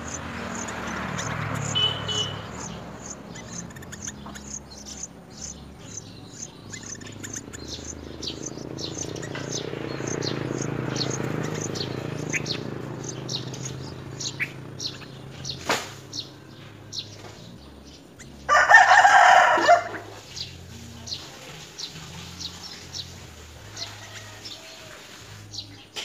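Short high chirps repeating throughout over a low rumble, from yellow-vented bulbul nestlings begging in the nest. About two-thirds of the way in, a loud call lasting about a second and a half, like a rooster crowing.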